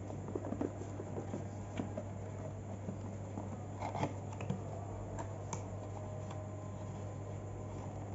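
Cardboard LED bulb box being handled and opened by hand: scattered light scrapes, taps and rustles of the card, busiest in the first few seconds, over a steady low hum.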